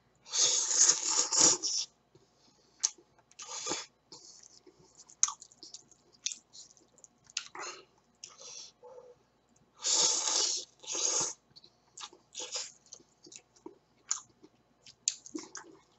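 A man eating instant ramen noodles off chopsticks. There are two long, loud slurps, about half a second in and about ten seconds in, with shorter slurps, chewing and small wet smacks between them.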